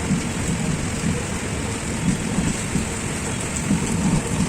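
Passing train's wheels rolling on the rails: a steady, loud rumble and rush with uneven low swells.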